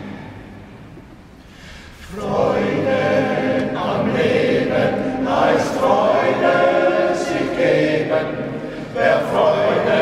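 Men's choir singing a cappella, echoing in a large church; after a quieter first two seconds the full choir comes in and sings on.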